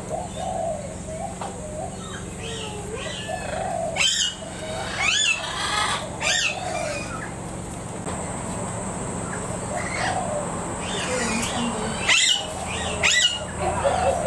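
Aviary birds calling: loud, sharp squawks in two clusters, about four seconds in and again near the end, over lower, softer warbling calls.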